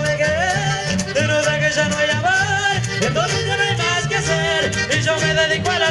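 Live chamamé band music: an accordion-led group with guitar and electric bass playing a steady dance rhythm.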